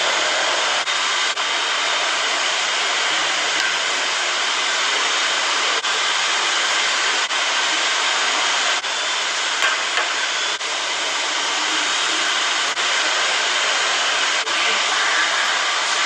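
Steady, loud rushing noise that holds even throughout, with brief dropouts every few seconds.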